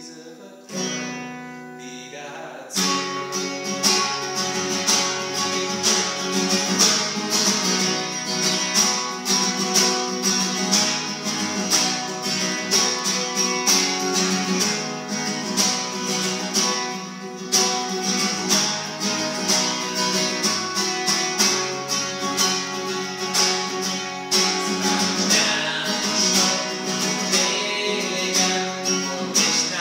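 Acoustic guitar: a chord or two let ring, then steady rhythmic strumming starts about three seconds in and carries on.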